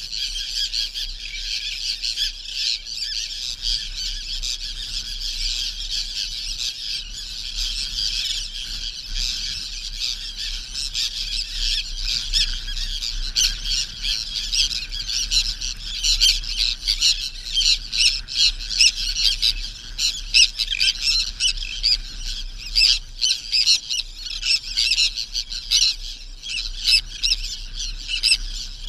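A dense chorus of many birds chirping and squawking together without a break, growing busier and louder about halfway through.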